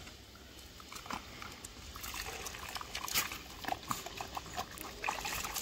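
Water trickling and splashing as a puppy is bathed, in short irregular splashes that grow busier after the first couple of seconds.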